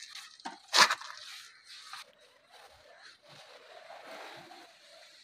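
Hand-held applicator wiping tyre polish over a rubber tyre sidewall, an uneven rubbing, scraping sound. About a second in there is one short, sharp, louder noise.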